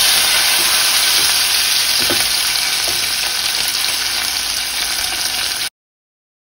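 Hot oil sizzling steadily in a steel pot as sliced onion and garlic fry with freshly added ginger-garlic paste, with a wooden spatula stirring. The hiss eases a little and cuts off suddenly near the end.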